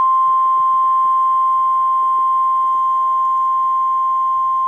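NOAA Weather Radio 1050 Hz warning alarm tone: one steady, unbroken tone, the signal that a warning message is about to be broadcast.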